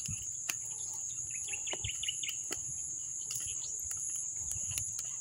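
Steady, high-pitched insect chorus, with a quick run of short bird chirps about one and a half to two seconds in and scattered light clicks.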